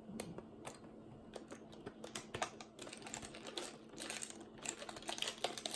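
Irregular clicks and taps of a small plastic toy luggage loader being worked back into its slot in a plastic packaging tray, growing busier after about two seconds.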